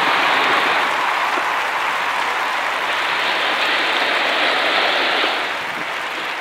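Breaking surf and whitewater rushing in the shallows: a steady hiss that eases a little about five seconds in.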